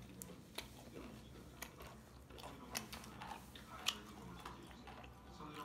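Faint sounds of people eating a meal: chewing, with a few scattered light clicks of utensils against dishes.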